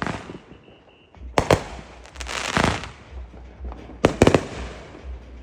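Aerial fireworks bursting: two sharp bangs after a quiet first second, then a spreading crackle, then a quick cluster of bangs about four seconds in.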